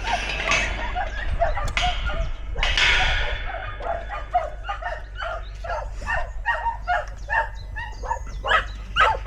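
Several dogs barking and yipping excitedly, in rapid short barks several times a second from about four seconds in. In the first few seconds there are bursts of rustling, hiss-like noise.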